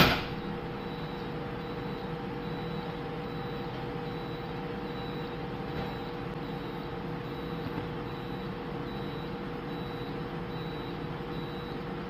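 Steady hum of steering gear machinery with a faint, high alarm beep repeating about once a second: the steering gear alarm panel sounding the low oil level alarm under test. A sharp click comes at the very start.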